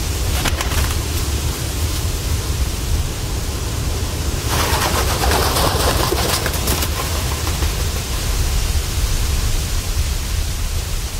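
A steady noise hiss over a deep rumble, part of the track's sound, growing brighter and louder from about four and a half to seven seconds in.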